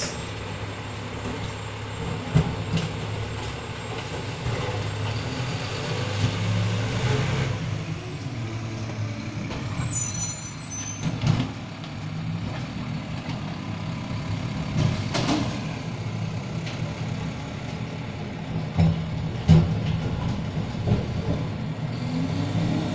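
Refuse truck's diesel engine running steadily, with several sharp thumps and clanks, the loudest about two seconds in and again late on.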